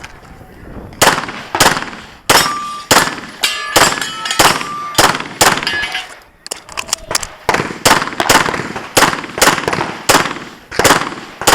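Pistol firing a long, rapid string of shots on a practical-shooting stage, about two shots a second starting about a second in and continuing throughout, with a brief metallic ringing after several shots in the middle.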